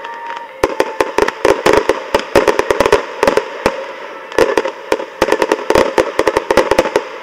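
Fireworks going off in a dense, irregular volley of sharp bangs and pops, several a second. The bangs ease briefly a little past halfway, then pick up again.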